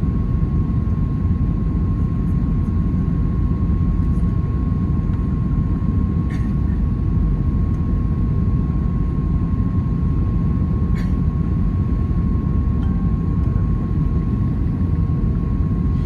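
Airbus A320 cabin noise on final approach, heard from a window seat over the wing: the steady rumble of the engines and the airflow, with a thin steady whine above it. Two faint ticks come through, one midway and one about two-thirds of the way in.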